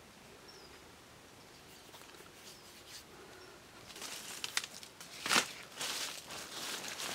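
Dry leaf litter and soil rustling and scraping in a series of short strokes as the forest floor is swept with a bamboo stick, starting about four seconds in. A faint bird chirp comes near the start.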